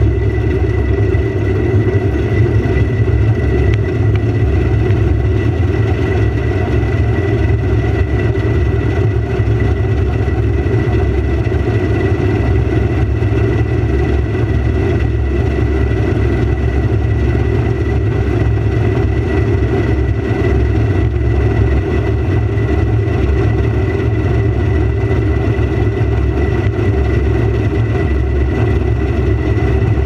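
Combine harvester heard close up at its header while cutting grain: a steady, loud machine drone with a thin, unchanging whine on top.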